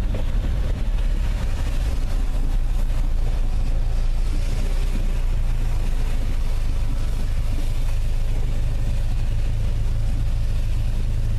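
Steady drone of a car driving, heard from inside the cabin: a low engine and road hum under an even hiss of tyres on the wet road and rain.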